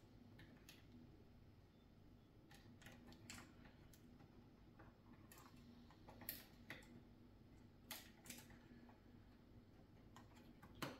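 Near silence with a few faint, scattered clicks and taps of small lighting-cable connectors being handled and plugged together.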